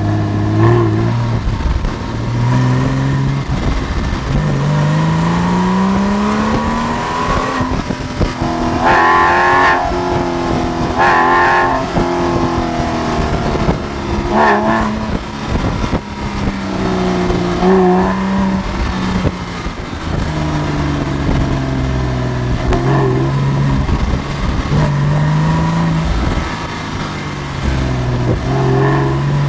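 Porsche 911 (997 mk1) Carrera's flat-six with the Porsche Sport Exhaust, pulling through the gears. The engine note climbs in pitch and drops back at each gear change, with louder revving stretches about nine, eleven and fourteen seconds in.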